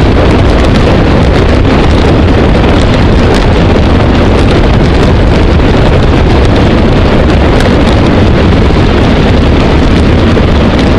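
Loud, steady wind rushing and buffeting over the microphone of a bike-mounted camera on a fast road-bike descent, a low rumble with faint ticks running through it.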